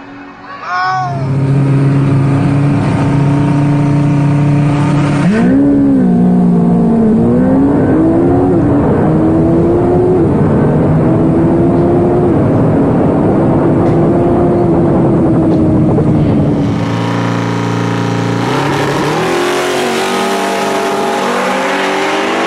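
Drag-race launch and full-throttle run of a Kawasaki ZX-14 motorcycle against a twin-turbo LS-powered Chevrolet Caprice. The engine note holds steady for the first few seconds, then climbs in pitch and drops back again and again as it shifts up through the gears. Near the end the steady note and the climbing shifts come round once more.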